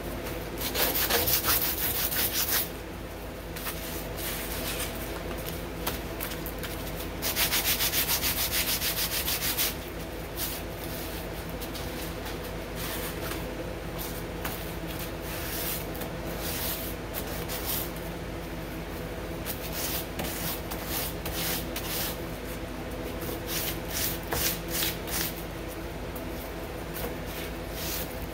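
Sandpaper rubbed by hand over a chromatic harmonica's mouthpiece slider in quick back-and-forth strokes. There are two loud runs of fast, even strokes, near the start and about a third of the way in, then lighter, shorter spurts of strokes.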